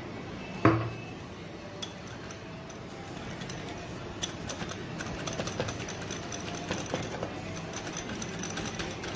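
A single knock about a second in, then a spoon clinking and scraping against a bowl as a thick mayonnaise dressing is stirred, in quick small ticks.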